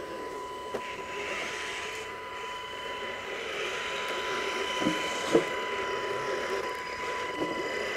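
Electric motor and drivetrain of a radio-controlled scale Hummer H2 crawler whining steadily as it climbs over rocks, with two short knocks about five seconds in.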